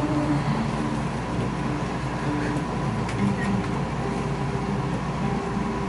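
Two acoustic guitars playing quietly, short held low notes shifting in pitch.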